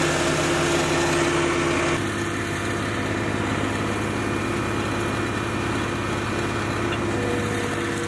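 New Holland skid steer's engine running steadily as the machine moves slowly with a pallet of bricks raised on its forks. About two seconds in the sound changes abruptly and carries on a little quieter.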